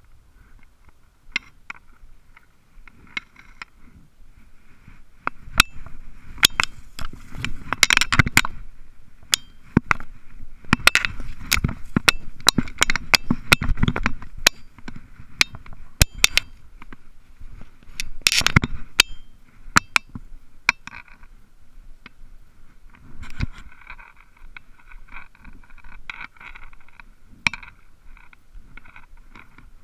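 Dry weeds and brush crackling and scraping against clothing and a body-worn camera as someone pushes through them on foot: a dense run of sharp clicks and rubs, busiest in the middle, thinning out toward the end.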